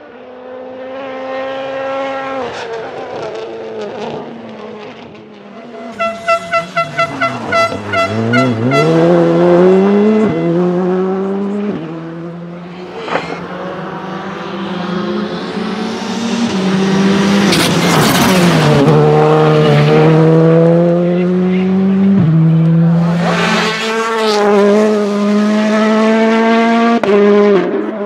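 World Rally Cars, 1.6-litre turbocharged four-cylinders, accelerating hard past one after another at full revs. The engine note climbs and drops back with each gearshift and dips as each car goes by. About a quarter of the way in comes a rapid string of pops.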